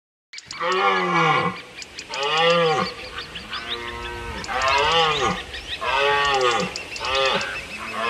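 Red deer hinds calling: about six rising-and-falling bleating calls, one after another, each under a second long, with faint clicks among them.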